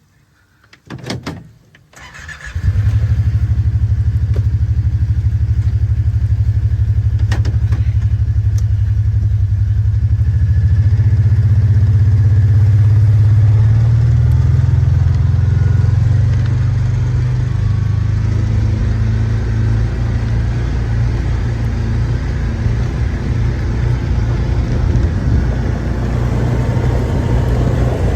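Side-by-side utility vehicle's engine starting after a couple of clicks about two seconds in, then running steadily.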